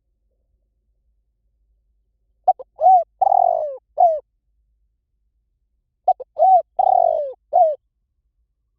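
Spotted dove cooing: two calls about three and a half seconds apart, each a quick run of short coos with one longer, rougher note.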